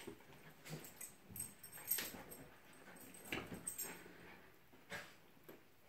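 Dog whimpering with excitement while waiting for a toy, with a few soft short knocks or rustles.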